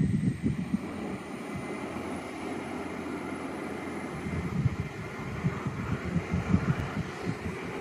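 Stadler Citylink tram-train pulling away on its diesel generators: a steady engine drone with a faint high whine that rises slowly in pitch as it gathers speed. Low gusts of wind noise hit the microphone at times.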